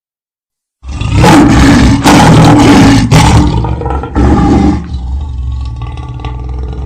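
Lion roaring: a loud roar begins about a second in, comes in several heaving pushes, and drops to quieter low rumbling grunts after about five seconds.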